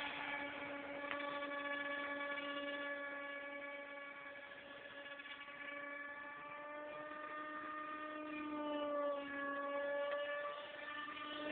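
Electric motor and propeller of a Beta 1400 RC glider in flight, a faint steady whine that dips and rises slightly in pitch.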